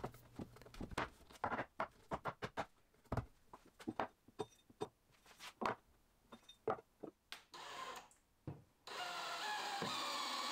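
Pine boards knocked and shifted against a wooden frame on a workbench, a string of sharp knocks and clicks. About nine seconds in, a DeWalt cordless drill/driver starts running steadily, driving a screw into a pocket hole.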